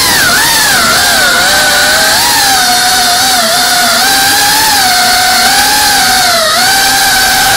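FPV quadcopter's brushless motors and propellers whining loudly, heard from the onboard camera, the pitch wavering up and down as the throttle changes.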